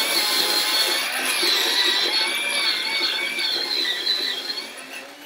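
Electric pencil sharpener grinding a wooden pencil to a point, a steady grinding with a wavering motor whine. It dies down near the end as the pencil finishes sharpening.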